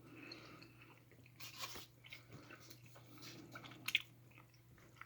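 Faint chewing of a dense, sticky gummy bear: irregular soft wet smacks and sticky clicks of the mouth, a little louder about one and a half seconds in and again near four seconds.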